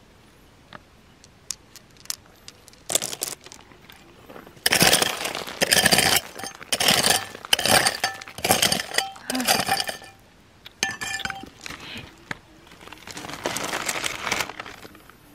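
Hard objects clinking and scraping against each other in a run of short, noisy bursts. It starts with a few faint clicks and grows busy about three seconds in, loudest between about five and ten seconds.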